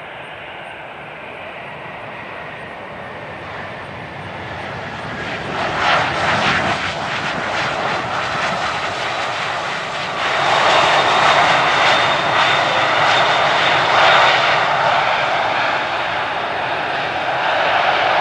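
Two turbofan engines of a CRJ-700 regional jet running during the landing rollout on the runway, a steady jet rush. It grows louder about six seconds in and again at about ten seconds as the jet rolls past.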